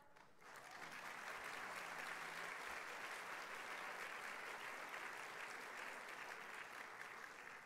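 Audience applauding, swelling up over the first second, holding steady, then thinning out near the end.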